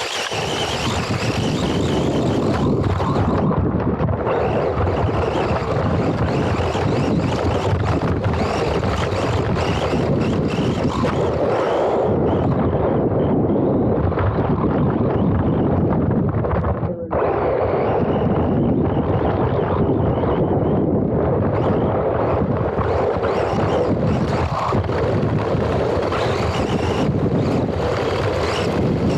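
Wind rushing and buffeting over the microphone of a small action camera riding on a racing RC car, mixed with the car's running noise as it drives over dirt. The sound is steady, with a brief drop about seventeen seconds in.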